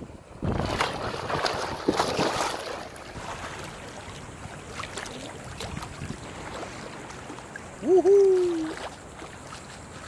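Beach water and wind noise: a loud rush of splashing or wind on the microphone for about two seconds, settling into a steady wash. About eight seconds in, a short loud vocal sound sweeps up and holds for about a second.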